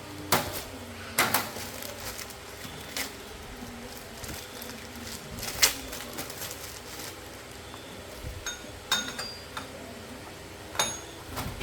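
Scattered metallic clinks and knocks of hand tools and metal parts being handled during a motorcycle repair, about six separate strikes, a few of them ringing briefly, over a steady low hum.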